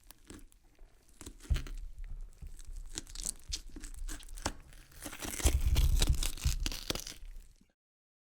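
Horror gore sound effect of tearing and crunching: scattered crackles and cracks, growing dense and heaviest about five to seven seconds in, then cutting off to silence.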